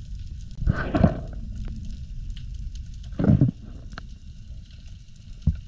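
Underwater ambience picked up by a speargun-mounted camera: a steady low rumble of water noise with faint crackling and ticks. Two louder rushing surges come about a second in and just past three seconds, with sharp clicks near four seconds and near the end.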